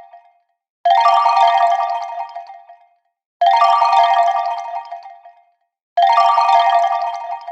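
Text drop title sound effect played three times, about every two and a half seconds. Each starts suddenly with a fast rattle of ticks over a cluster of bright ringing tones and fades away over about two seconds.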